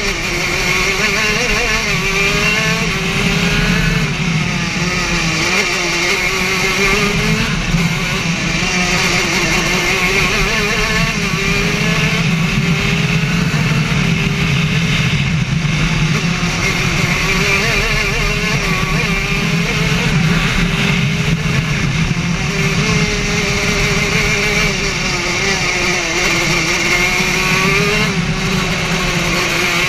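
Two-stroke racing kart engine running hard through a lap, its pitch climbing as it accelerates and falling back as it slows for the corners, over and over, heard from onboard the kart.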